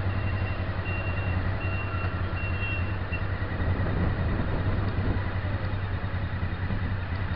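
Steady engine running and road noise from the vehicle carrying the camera as it travels along a street, with a run of short high-pitched beeps repeating during the first three seconds.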